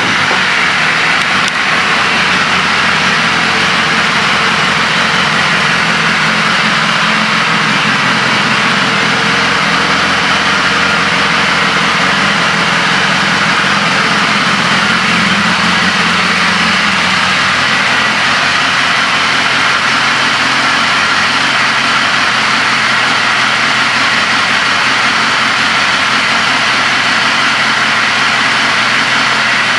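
2016 BMW S1000RR's inline-four engine idling steadily.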